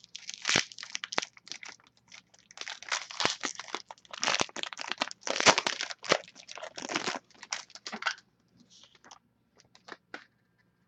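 A trading card pack wrapper being torn open and crinkled, in a run of irregular rustles and crackles for about eight seconds, then a few faint handling clicks near the end.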